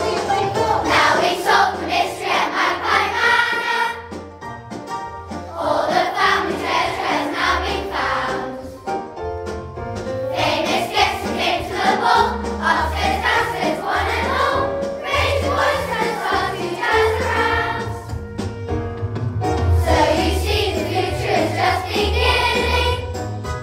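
A group of children singing a song together as a choir, over a musical accompaniment with a bass line of separate held notes.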